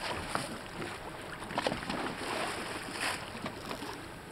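Small waves lapping and slapping against a boat's hull, with irregular splashes, the loudest about one and a half and three seconds in, over wind on the microphone.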